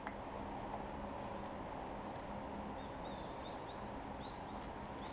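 Steady open-air ambience of a ballfield, with a few faint bird chirps about three seconds in.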